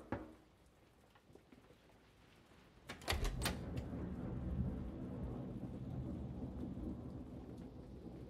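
Thunderclap: a few sharp cracks about three seconds in, then a long low rumble that slowly fades.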